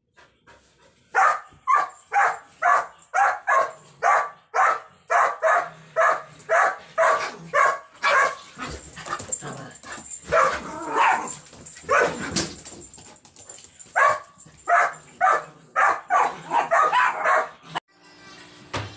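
A dog barking over and over in quick succession, about two barks a second, with the barks running together around the middle; the barking stops abruptly near the end.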